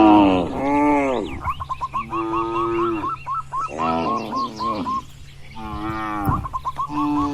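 Several cattle mooing one after another, with some calls short and arching and others drawn out for about a second, and the calls overlapping at times.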